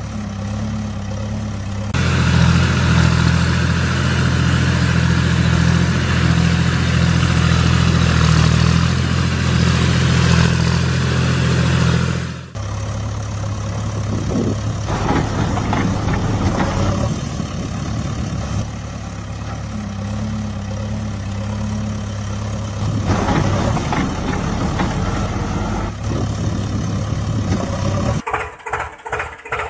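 Heavy diesel engine running steadily, louder and working harder from about two seconds in until about twelve seconds, then dropping back to a lower steady run; near the end the sound turns to a rapid pulsing chug.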